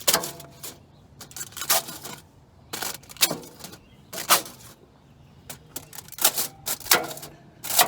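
Knife cutting small slits in meat, giving irregular sharp clicks and knocks as the blade strikes the surface underneath, about a dozen in all.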